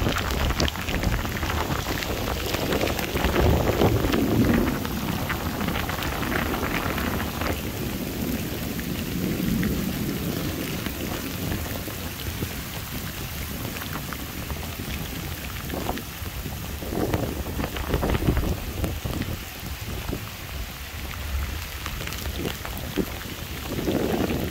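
Heavy rain falling steadily on pavement and open ground, with low rumbling swells that come and go every few seconds.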